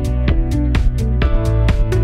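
Background music with a steady beat, about four strokes a second, under sustained notes.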